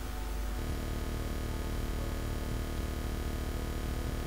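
Steady low electrical hum with hiss, background noise with no distinct events; the hum grows a little fuller about half a second in.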